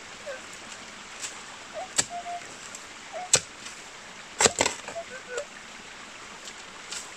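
Shovel digging into stony ground: a handful of sharp knocks and scrapes as the blade strikes stones, the loudest around the middle.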